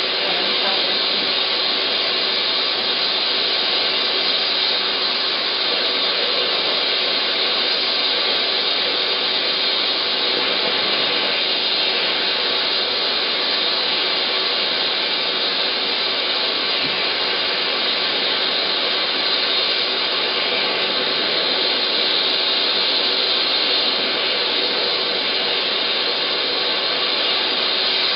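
Dental high-speed handpiece and suction running steadily while a diamond bur cuts a trough around a crown preparation margin: a constant, even hiss.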